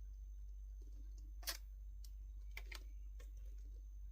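A few faint, scattered light taps and clicks of honeyberries and their container being handled as the berries are sprinkled over cake batter, the clearest about one and a half seconds in, over a low steady hum.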